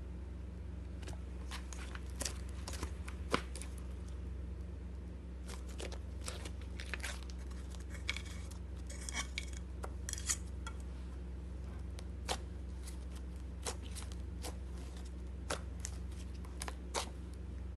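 Thick, soft slime being stretched, pressed and poked by hand, giving scattered sharp sticky clicks and pops, thickest in the middle, over a steady low hum.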